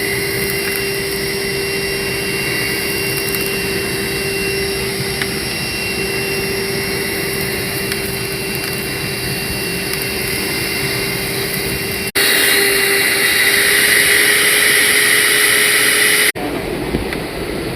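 A vacuum running steadily, a constant hum with a thin high whine, as it sucks soil out of cracks in the rock to recover missed gold. About twelve seconds in, the sound jumps abruptly to a louder, hissier rush for about four seconds, then drops back just as abruptly.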